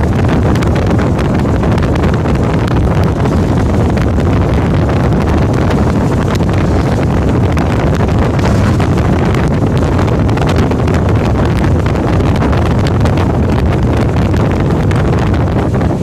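Heavy wind noise buffeting the microphone: a loud, steady rumble.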